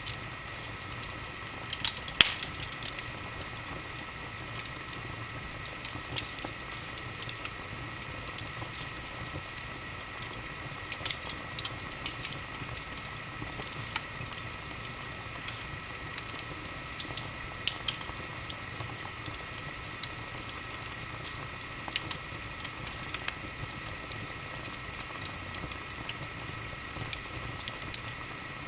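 Wood fire in an open fireplace crackling, with irregular sharp pops over a steady hiss of burning; the loudest pops come about two seconds in.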